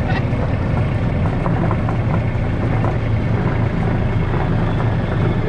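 Farm vehicle's engine running steadily, a low, continuous drone as it drives along.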